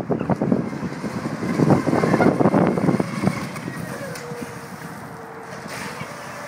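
Small electric RC catamaran's motor whining as it runs across the lake, a thin steady tone that wavers slightly with speed. Gusty wind buffets the microphone, heaviest over the first three seconds.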